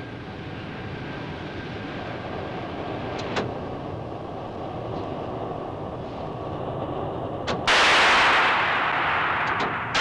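Electric arc furnace arcing as its electrodes bore down into the scrap charge at the start of a melt: a rough, crackling noise with a couple of sharp cracks, suddenly becoming much louder and harsher near the end.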